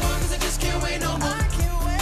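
Live pop and R&B music with a steady drum beat and heavy bass, and a sung melody gliding up and down over it.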